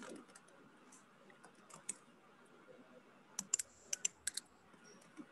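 Computer keyboard typing, faint: scattered single key clicks, then a quick run of keystrokes a little past halfway.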